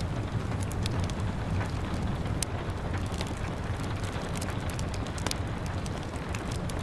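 Wood fire crackling, with scattered sharp pops, over a steady hiss of rain and a low rumble.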